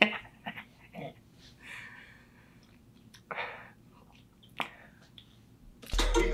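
Quiet room with faint mouth noises, a short breath a little over three seconds in, and a sharp click about a second later. A hip hop track with rapping comes in loudly near the end.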